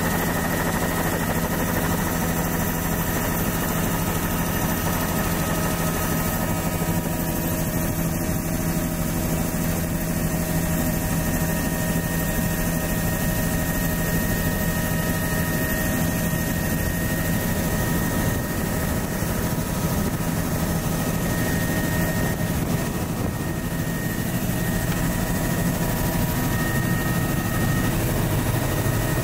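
Helicopter in flight, heard from on board with the doors off: a steady engine and rotor drone mixed with rushing air.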